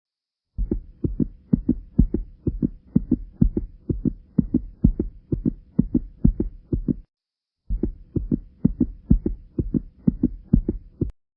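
Regular heartbeat-like double thumps, about two pairs a second, over a faint steady hum. They break off for a moment partway through, resume, and stop abruptly just before the end.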